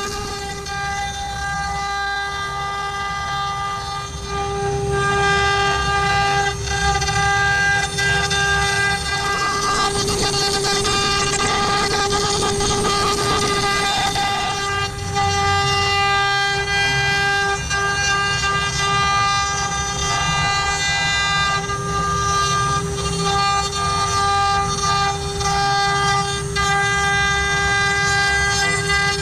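CNC router spindle running at a steady high-pitched whine while its bit carves wood, with a low rumble of the machine underneath. The cutting noise swells for a few seconds about midway through.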